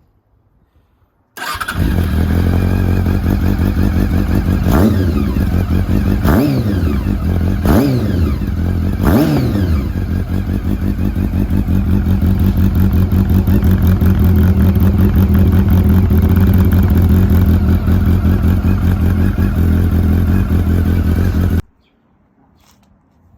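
Honda CB400 Super Bol d'Or inline-four motorcycle engine idling through its exhaust. It is revved in four quick throttle blips about a second and a half apart, each rising sharply and falling back, then settles to a steady idle. The sound starts and cuts off abruptly.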